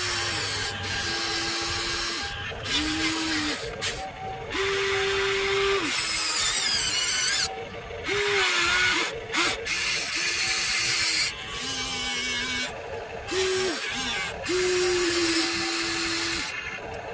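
Huina RC toy excavator's electric motors whining in a string of short runs, each a second or so long: a steady tone that bends up as it starts and drops as it stops. The whine comes over a rough, gritty noise as the arm and bucket move.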